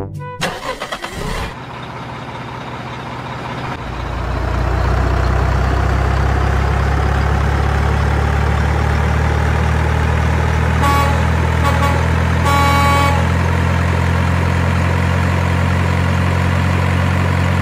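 Truck engine running steadily, coming up to full level about four seconds in. A horn sounds three times about two-thirds of the way through, the last blast the longest.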